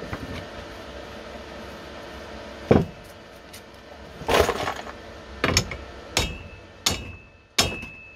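Hammer blows on a spanner clamped to a bolt welded onto a staked U-joint bearing cap, knocking at it to pull the cap out of the yoke: about six sharp metal strikes, the later ones ringing. A steady hum runs underneath until about three seconds in.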